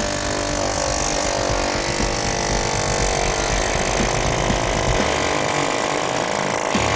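Pneumatic air chisel running continuously, its rapid hammering giving a steady buzzing rattle as it cuts through thick sheet metal.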